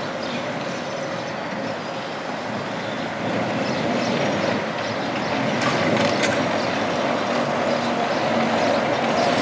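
Vintage electric tram, a red works car, rolling slowly past, its wheels and running gear rumbling on the rails and growing louder as it nears, with a few sharp clicks about six seconds in.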